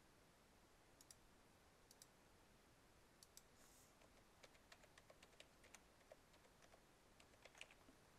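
Very faint computer mouse clicks and keyboard keystrokes: a few single clicks, then a quick run of taps in the middle as an IP address is typed, and a few more near the end.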